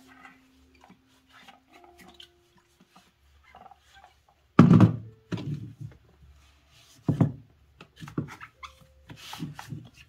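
A glass-and-stainless electric kettle being scrubbed with a sponge and handled on the counter: a held whine for the first few seconds that steps up in pitch, then several dull knocks, the loudest about four and a half seconds in.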